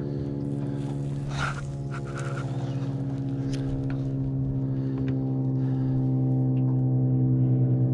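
Boat's electric trolling motor humming steadily, a low drone with even overtones that slowly grows louder, with a few light clicks of handling about a second in.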